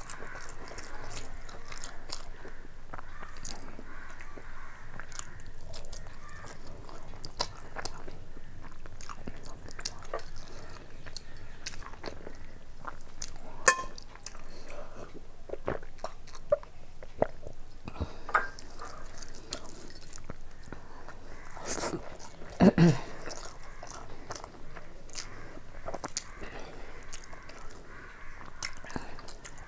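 Close-up chewing and mouth sounds of a person eating fried rice with egg by hand, with scattered clicks as the fingers gather rice on a steel plate. A louder knock comes about two-thirds of the way through.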